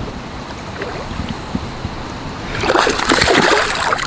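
A hooked pike thrashing at the surface in the shallows at the bank's edge as it is landed. About two and a half seconds in, a loud, rapid run of splashes starts and keeps going.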